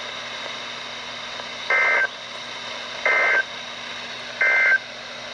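Three short bursts of Emergency Alert System SAME data from a NOAA Weather Radio broadcast: the buzzy two-tone digital squawk of the end-of-message code that closes a warning. Each burst lasts about a third of a second, about a second and a half apart, over faint radio hiss.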